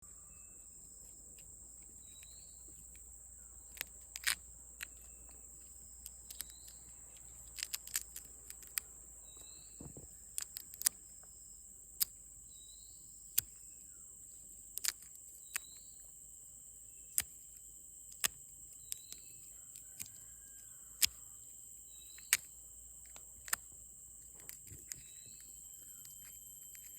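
A steady, high-pitched insect drone with a short chirp repeating about once a second, broken by sharp, irregular snaps and clicks, some in quick clusters of two or three.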